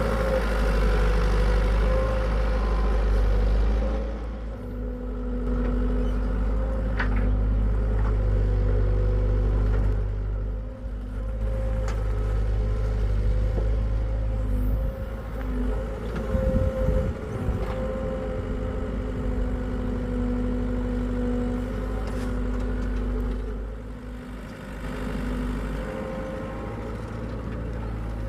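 Hitachi EX75UR excavator's diesel engine running steadily, its note rising and falling with the load of digging. A short spell of clatter comes about halfway through.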